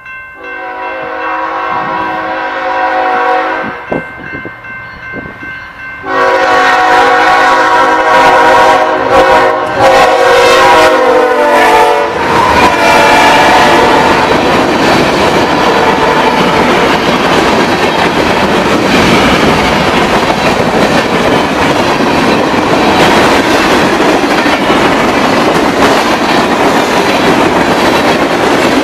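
Horn of a BNSF freight locomotive sounding as the train approaches: a long chord blast, a gap of about two seconds, then a louder long blast that drops in pitch as the locomotive passes about twelve seconds in. Then the locomotives and a string of covered hopper cars roll past with the steady loud noise of wheels on rail.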